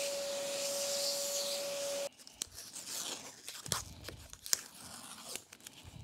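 Shop vacuum running with a steady whine and hiss, cutting off suddenly about two seconds in. Then masking tape is peeled off and crumpled, a run of small crackles and tearing sounds.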